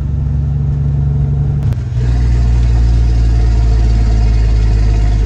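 Semi truck's Detroit Diesel Series 60 12.7-litre engine running while driving, heard from inside the cab as a steady drone. About two seconds in there is a short click, then the engine note drops slightly in pitch and gets louder.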